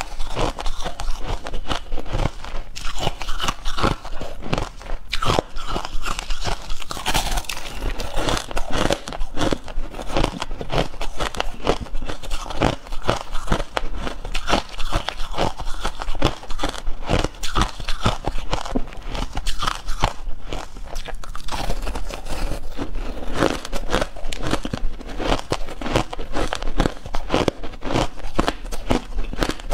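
Compacted crushed ice being bitten and chewed, close to a lapel microphone: a dense, irregular run of crisp crunches.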